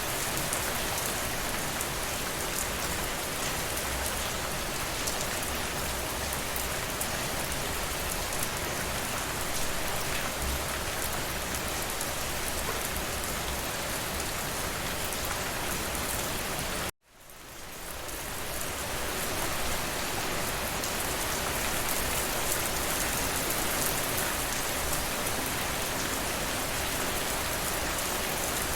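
Steady rainfall pattering on a surface. About two-thirds of the way through it cuts out suddenly for a moment, then fades back up over a couple of seconds.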